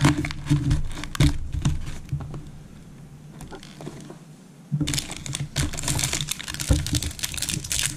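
Quick, irregular small clicks and taps, like keys being typed or small objects handled on a table. They thin out for a couple of seconds in the middle and then pick up again, over a faint low steady hum.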